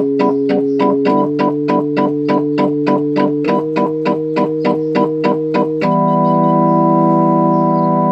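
Yamaha DX21 FM synthesizer playing a chord in quick repeated stabs, about four a second, stepping through several chord changes, then holding one sustained chord from about six seconds in. The unit is making sound normally in a test after its repair.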